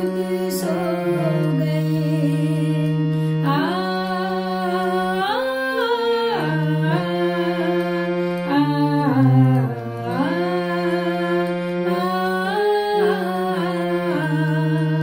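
A woman singing a slow Indian devotional-style song, her voice gliding and ornamenting between notes, accompanied by a harmonium holding steady reed chords beneath her.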